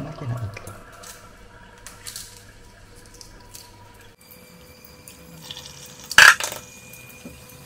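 Shell being peeled by hand off a hard-boiled egg, with faint crackles and small clicks. About six seconds in comes a short, loud splash in the steel pot of water in the sink.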